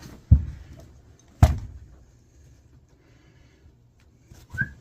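Two sharp knocks about a second apart, the second with a bright metallic click, from tools or parts being handled during HVAC work. A short whistled note starts near the end.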